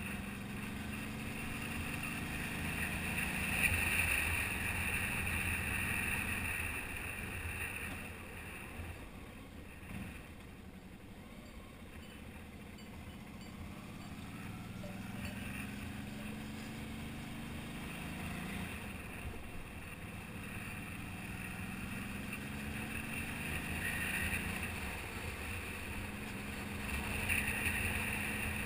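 Motorcycle engine running under way with wind rushing over the microphone. The engine note rises several times as the bike accelerates, with a quieter, lower stretch about a third of the way through.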